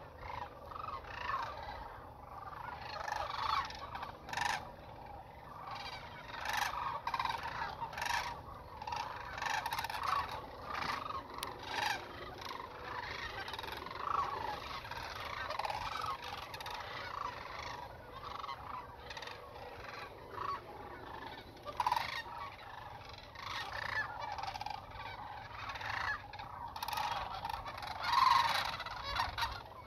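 A large flock of sandhill cranes calling: many overlapping calls in a continuous chorus, with one louder call near the end.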